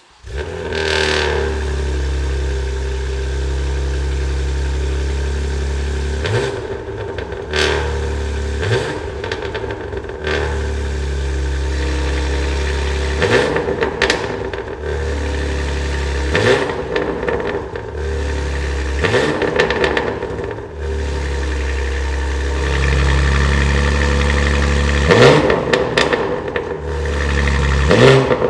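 A BMW G80 M3's S58 twin-turbo straight-six, breathing through a titanium equal-length X-pipe catback and catless downpipes, fires up on a cold start and settles to a steady fast idle. Short throttle blips break the idle repeatedly, each one rising quickly in pitch and falling back.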